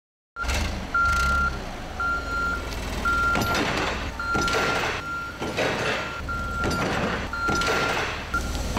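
Daewoo propane forklift's reversing alarm beeping about once a second, a single high tone, over the low rumble of its engine running.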